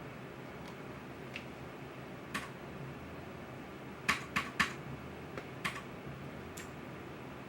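Steady whooshing noise of a ZOTAC GeForce GTX 1070 AMP! Edition graphics card's cooling fans running under load, with several sharp clicks on top, three close together about four seconds in.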